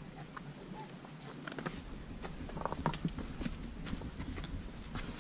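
Footsteps on a rocky trail: irregular crunches and clicks of shoes on stones and gravel, with a few sharper knocks from about halfway through.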